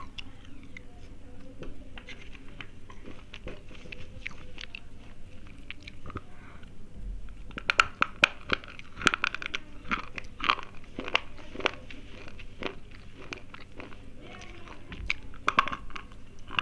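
Slate pencils being bitten and chewed close to the microphone, making sharp crunches. The crunches are sparse and faint at first, become a dense run of loud crunches from about halfway through, and come in another cluster near the end.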